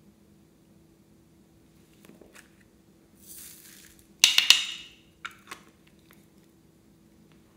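Plastic case of a rainbow-shaped makeup item being pried open: a brief scraping rustle, then a quick cluster of sharp plastic cracks and clicks about four seconds in, and two lighter clicks a second later.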